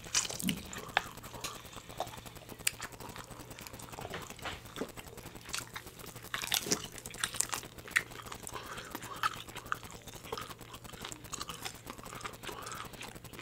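Seafood being chewed and bitten into, with irregular small crunches and clicks.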